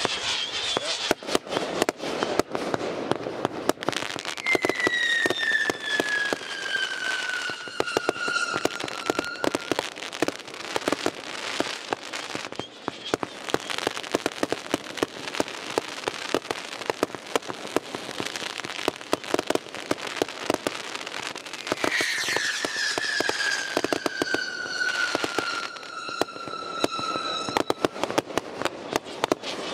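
Fireworks display: dense crackling and popping of aerial bursts throughout, with two long whistles falling in pitch, one starting about four seconds in and another about 22 seconds in.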